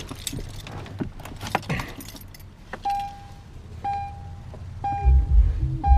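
Keys jangling and clicking in the 2004 Chevy Colorado's ignition, then the truck's warning chime dinging about once a second. Near the end the radio starts playing, with a heavy low beat.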